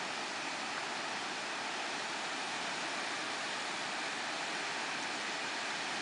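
Steady rushing of a waterfall: an even hiss that holds level throughout.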